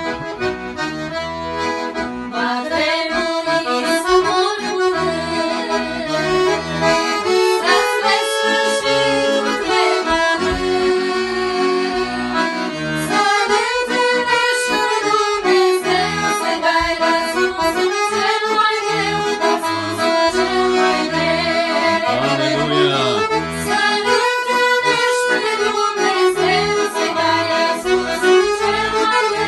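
Piano accordion playing a song, with two women's voices singing the melody together over it from a couple of seconds in.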